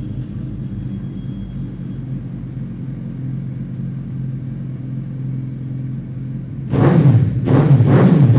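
Suzuki Hayabusa's inline-four engine with aftermarket LeoVince exhausts, idling with a steady low rumble. About seven seconds in, a much louder sound with a pulsing beat about twice a second comes in over it.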